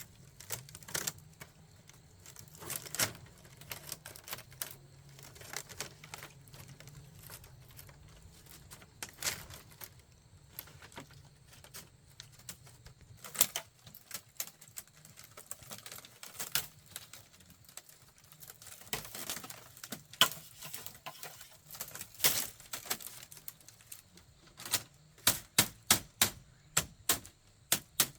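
Irregular sharp taps and knocks of hand tools working bamboo, ending in a quick, even run of taps about three a second.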